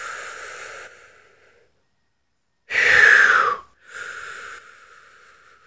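A man breathing deeply and audibly, close to the microphone, in deliberate breaths of a paced breathing exercise. A long breath fades out in the first second and a half, a short, loud, forceful breath comes about three seconds in, and another longer breath follows and tails off.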